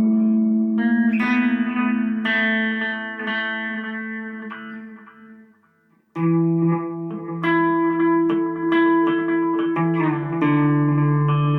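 Instrumental music: held notes with a run of quicker notes on top fade out about halfway through, then a new passage starts suddenly on lower held notes.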